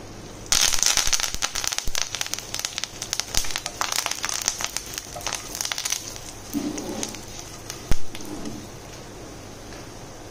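Fresh curry leaves dropped into hot oil sputter and crackle, many sharp pops starting suddenly about half a second in and thinning out after about six seconds. A wooden spatula then stirs the spices, and there is a single sharp knock about eight seconds in.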